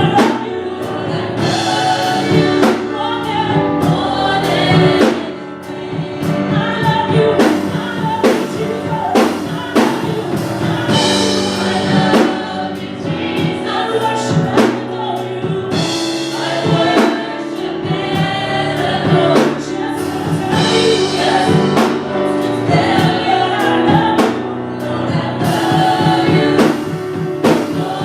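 Gospel choir singing with a band, drums keeping a steady beat.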